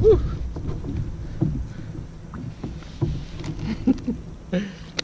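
Scattered light knocks and rustles of a brown trout being handled in a mesh landing net inside a kayak, irregular, over a low rumble.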